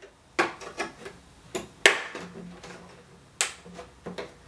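Thin clear PET plastic sheet being folded, with its tabs pushed into slots: a series of about six sharp plastic clicks and crackles, the loudest about two seconds in.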